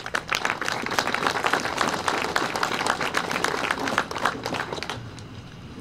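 Crowd applauding: dense clapping that thins out and fades over the last second or so.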